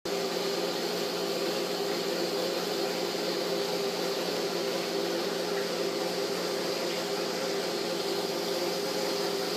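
Aquarium filter pump running with a steady hum and hiss.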